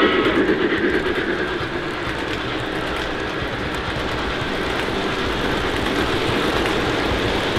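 O gauge model steam locomotive running on its track: a steady rush of its sound system's steam and rolling noise.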